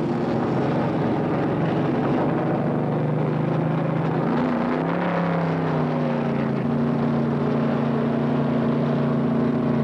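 NASCAR stock car engines running in a steady drone. The pitch bends and shifts about halfway through.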